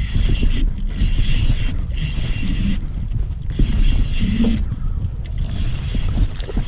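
Fishing reel being cranked in stretches of turns, its gears whirring and clicking, over heavy wind rumble on the microphone.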